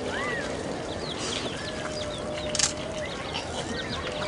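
Birds chirping outdoors: many short, scattered, curving chirps over a faint steady hum.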